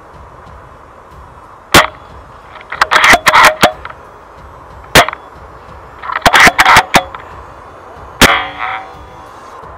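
Airsoft gunfire exchanged in a firefight: loud single sharp cracks at about 2, 5 and 8 seconds, with two short rapid bursts of clacks about 3 and 6 seconds in, the player pinned down by enemy fire.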